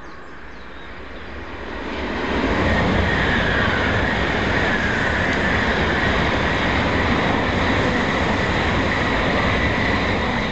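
N700-series Shinkansen bullet train passing at high speed: a loud rushing noise that swells about two seconds in, holds steady while the long train goes by, and begins to fade at the end.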